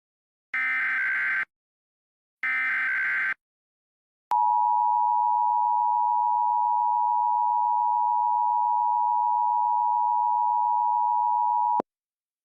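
Emergency Alert System tones: the last two of the three screeching SAME header data bursts, about a second each with a second's gap, then the steady two-tone EAS attention signal for about seven and a half seconds, starting and cutting off with a click.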